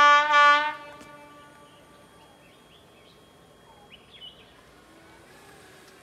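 Air horn of an Alsthom diesel-electric locomotive sounding two short blasts in quick succession at the very start, as the train approaches. After that only faint bird chirps and a thin high insect tone remain.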